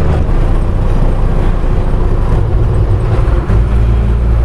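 Bus engine running, heard from inside the moving bus: a steady low drone that grows steadier and stronger about three and a half seconds in.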